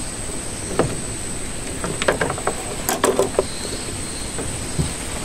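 Scattered light knocks and clicks of a small boat's hull and a fishing rod and reel being handled as a man shifts his weight, over a steady hiss with a thin high whine.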